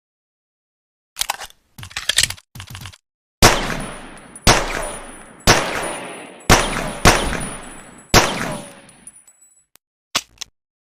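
Pocket pistol sound effect: a few light mechanical clicks, then six gunshots roughly a second apart, each trailing off in a long echoing decay with a faint high ring, followed by two more short clicks near the end.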